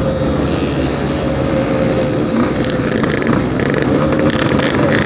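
Yamaha RX-King's 135cc single-cylinder two-stroke engine running through an aftermarket Packing Power exhaust while riding, at a fairly steady engine speed.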